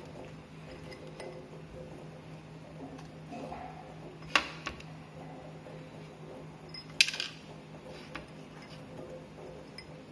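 Glass ice-cream bowls and a plate clinking and knocking as fried cutlet lollipops on sticks are set into them, with two sharp knocks about four and seven seconds in. A steady low hum runs underneath.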